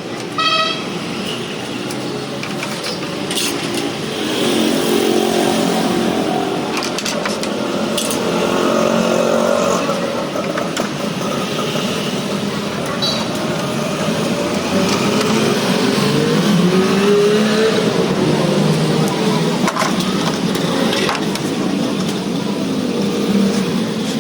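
Street traffic: vehicle engines running and passing, their pitch rising and falling, with a short horn toot about half a second in.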